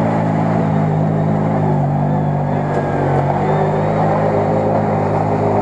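CFMoto CF800-Z8 side-by-side UTV engine running steadily under load as it crawls through deep mud, its pitch wavering slightly.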